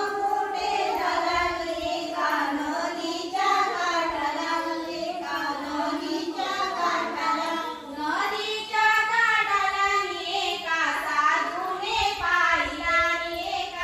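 Group of women and girls singing a fugdi folk song together, in high voices, with no break.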